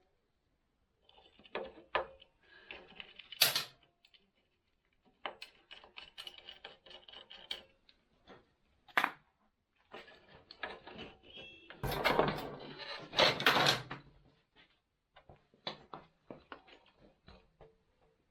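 Irregular clicks, clinks and rattles of hand tools and metal parts being handled while a motorcycle is taken apart, with a few sharp knocks and a louder stretch of rattling about twelve seconds in.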